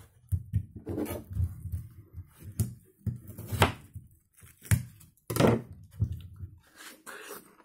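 Cut pieces of watermelon being handled and moved on the table close to the microphone: a run of knocks and bumps, with several louder sharp knocks.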